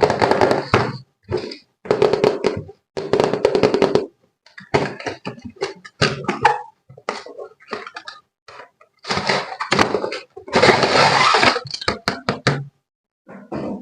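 Knocking and clattering of objects being handled, in short choppy stretches that cut off abruptly, with many sharp clicks.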